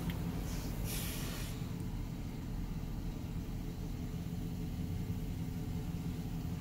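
2012 Chevrolet Silverado 1500's 4.8-litre V8 idling steadily, heard from inside the cab, with a brief hiss about a second in.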